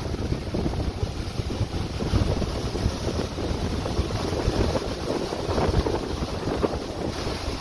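Strong gale wind buffeting the microphone in uneven gusts, over the rush of a rough sea passing the hull.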